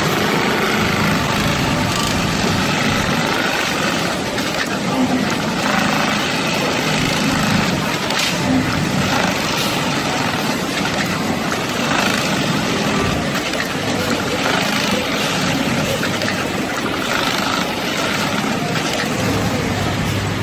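Computerized pattern sewing machine running, its needle stitching steadily through shoe-upper pieces clamped in a template pallet, with a continuous mechanical whir.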